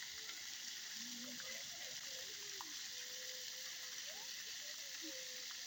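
Faint steady outdoor hiss, with faint far-off voices wavering through it.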